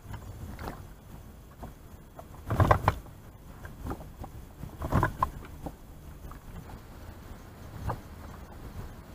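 Irregular knocks and thumps in a small fishing boat as the angler moves about and handles his gear, over a low steady rumble. The two loudest thumps come about two and a half and five seconds in.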